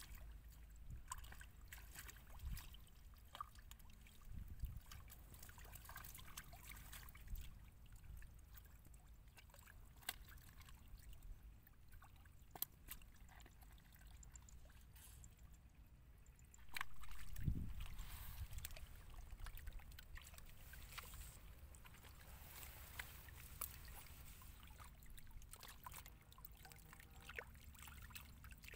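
Hands scooping and sloshing in shallow muddy water while feeling for fish, with faint small splashes and clicks over a low rumble, and one louder low rumble lasting about a second past the middle.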